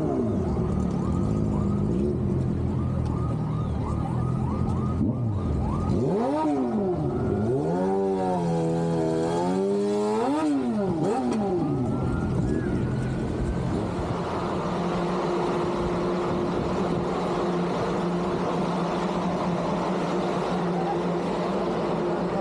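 Motor vehicle engines in street traffic, revving up and down several times in the middle, then settling into a steady engine hum.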